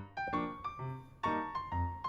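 Background music: a keyboard melody of short struck notes, about two or three a second, over bass notes.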